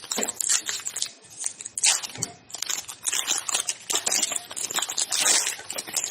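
Crinkling and tearing of a foil trading-card pack wrapper, with cards rustling as they are handled; irregular scratchy rustles throughout.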